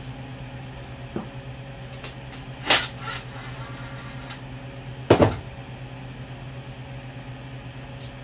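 A few sharp knocks and clunks of hand tools and parts being handled while carburetor bolts are taken off a small motorcycle: a light one about a second in, a louder one near the middle, and the loudest, doubled, about five seconds in. A steady low hum runs underneath.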